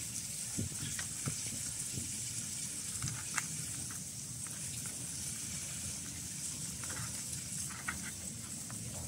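Several cats chewing and crunching pieces of fish, with scattered small crunchy clicks over a steady high hiss.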